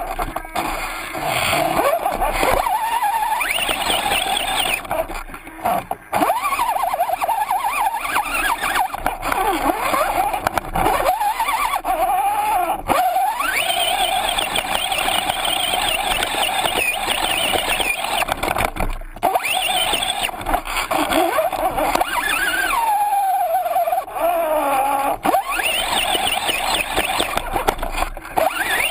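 Axial SCX-10 RC rock crawler's electric motor and geared drivetrain whining, the pitch rising and falling as the throttle is worked, with short breaks where it lets off.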